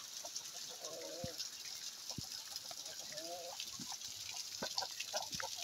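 Steady hiss of heavy rain, with a chicken calling twice, short wavering notes about a second in and again about three seconds in, and scattered sharp ticks toward the end.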